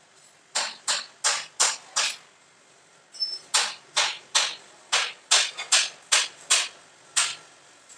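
A run of sharp knocks at about three a second, in two bursts: five strikes, a pause of about a second, then about a dozen more.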